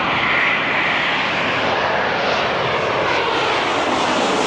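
Jet airliner passing low overhead on its landing approach: steady loud engine noise with a high whine that slowly falls in pitch as it goes by.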